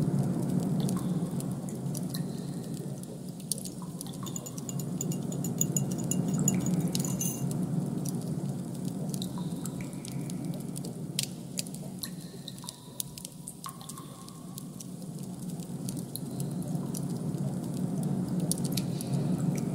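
Designed ambient soundscape: a low rushing drone that swells and fades in slow waves, with scattered small clicks and brief high tones over it.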